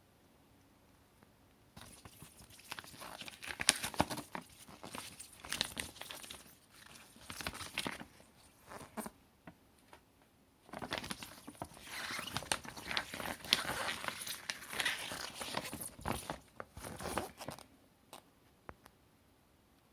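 Plastic packaging crinkling and rustling as it is handled, in two spells of several seconds each, with small clicks throughout.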